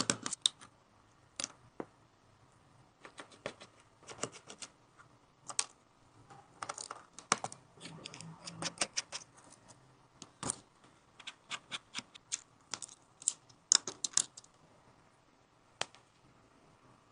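Small repair tools clicking and tapping on an iPhone, in irregular sharp clicks, some single and some in quick runs.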